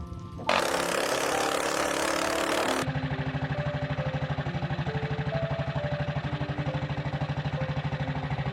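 Restored 1963 Triumph Tiger Cub's 200cc four-stroke single-cylinder engine. About half a second in, a loud rush of noise runs for about two seconds, then the engine settles into a steady, evenly pulsing idle.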